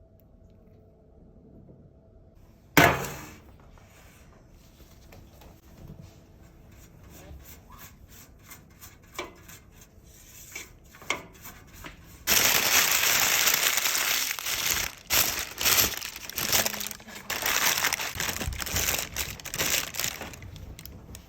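Kitchen handling sounds: one sharp knock about three seconds in, then scattered light taps, then from about twelve seconds a loud, uneven, continuous rustling noise.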